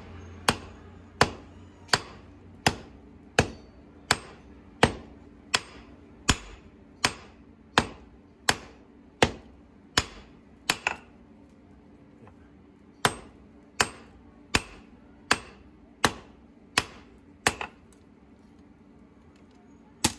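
Hand hammer forging a red-hot steel knife blank (aircraft-bolt steel) on an anvil: steady blows about one every three-quarters of a second, each with a short ring. The blows pause for about two seconds midway and stop a few seconds before the end.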